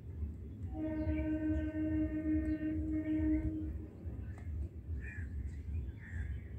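A horn-like tone holds one steady note for about three seconds, starting just under a second in. It plays over a constant low rumble, with scattered bird chirps and calls.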